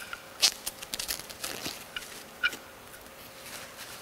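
Packaging crinkling and small handling clicks as a brass gas regulator is unwrapped and handled, with two sharper clicks about half a second and two and a half seconds in.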